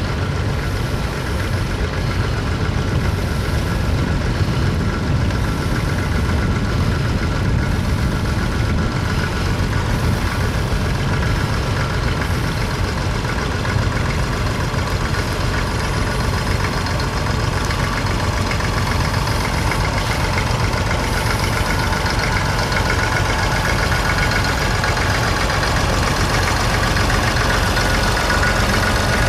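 Vintage tractor engine running steadily, with no breaks or sudden changes.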